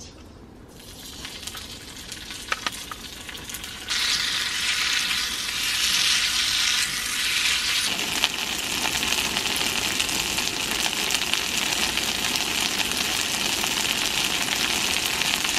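Kimchi sizzling as it stir-fries in oil in a frying pan. The sizzle starts faintly, grows much louder about four seconds in and fuller again about eight seconds in, then holds steady.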